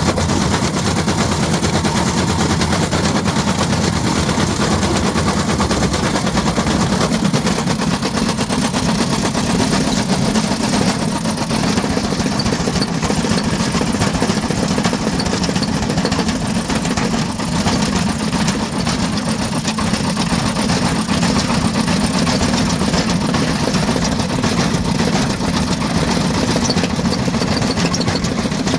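Ariston Margherita washing machine running at speed with a brick inside, the drum's hum overlaid by rapid, continuous clattering and banging.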